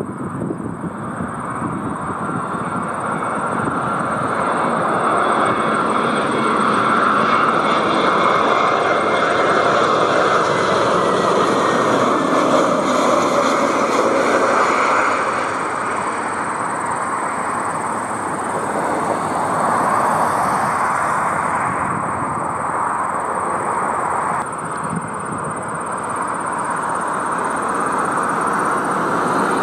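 An Airbus A321neo airliner's jet engines passing, a steady rush with a thin whine that slowly falls in pitch as it goes by. Near the end the sound drops and shifts to the engines of a second, smaller jet, an Embraer Legacy 450 business jet.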